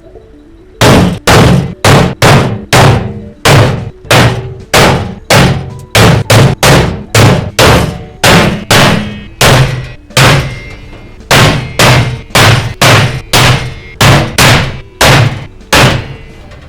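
Hammer blows on a clothes dryer's sheet-metal cabinet panels, struck in a steady run of about two loud blows a second, each with a short metallic ring.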